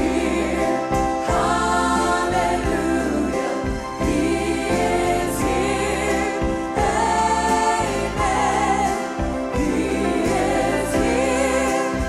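Live gospel worship song: a woman's lead voice with a group of backing singers, accompanied by a band with guitars, keyboard and bass.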